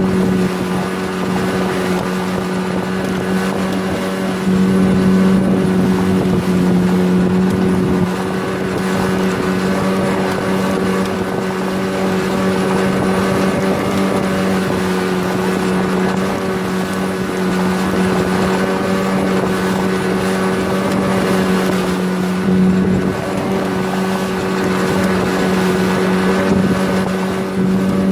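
9.8-horsepower outboard motor driving a small sectional boat, running steadily at a constant speed with an even, unchanging pitch.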